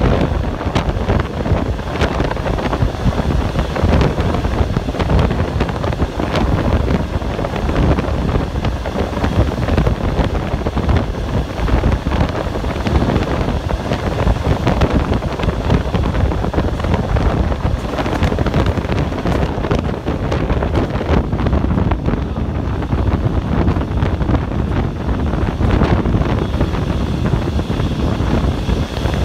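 Passenger train running through a tunnel, heard at an open carriage window: a loud, steady rush of air and rumble from the wheels and rails, with occasional clicks.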